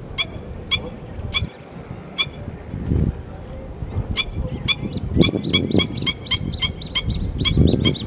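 Flock of greater flamingos calling with short goose-like honks, a few at a time at first, then many overlapping calls from about halfway on, with a few low rumbles beneath.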